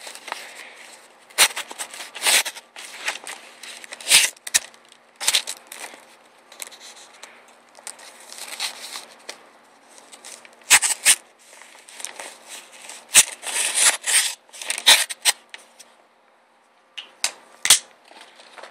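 Latchless balisong (butterfly knife) being handled, its steel-spacered handles opening and clacking shut: irregular sharp clicks with quieter rustling between them, and a short pause shortly before the end.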